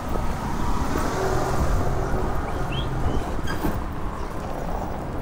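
A car driving past, its engine and tyres making a steady low rumble that swells about a second in and fades after about three and a half seconds.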